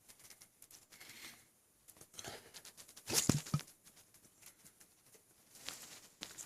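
Faint noises from an overfull stomach, distended with water: small scattered gurgles and crackles, with one louder sound about three seconds in that starts sharply and carries a low pitched tone for about half a second.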